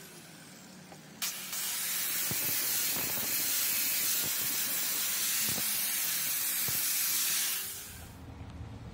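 Water spraying from a hose onto a freshly cast concrete block, washing the surface to expose the aggregate. A steady hiss starts sharply about a second in and stops near the end, with a few faint knocks underneath.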